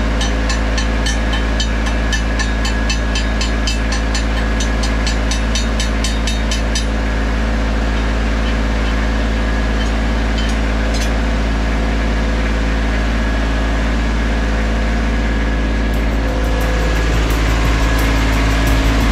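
Lincoln Ranger 300 DLX engine-driven welder running steadily while a 7018 stick electrode is welded at about 80 amps. Sharp regular ticks, three or four a second, sound over the engine until about seven seconds in.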